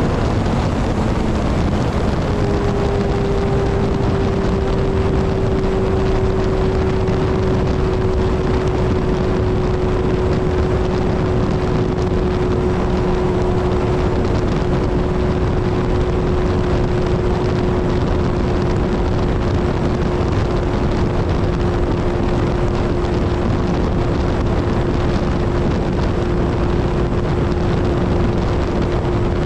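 Kawasaki Z1000 motorcycle's inline-four engine running at highway speed under a steady rushing noise. Its note steps down once about two seconds in, then slowly sinks lower.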